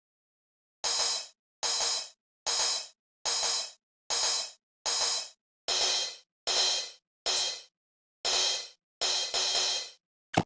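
A person's voice making short breathy hissing exhalations, about eleven in a row, a little more than one a second, the last few running closer together.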